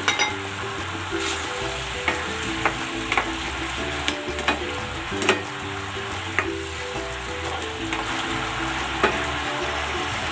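Soy-and-ketchup braising sauce bubbling and sizzling in a nonstick frying pan as fried hard-boiled eggs are turned in it with a spatula, which taps and scrapes against the pan a dozen or so times.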